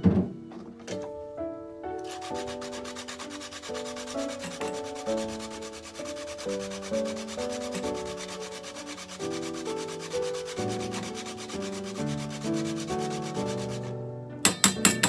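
A hard food block is rubbed quickly back and forth on a plastic hand grater, making a steady, fast rasping scrape. It starts about two seconds in and stops shortly before the end. Soft background music with plucked notes plays underneath.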